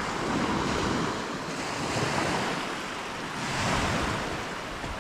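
Small waves breaking and washing up the shore, the noise swelling and falling back about every second and a half, with wind on the microphone.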